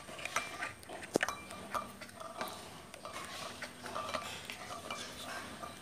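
Plastic spoon rolling a boiled egg around a ceramic bowl of red food colouring: faint scraping with light, irregular clicks against the bowl, one sharper click about a second in.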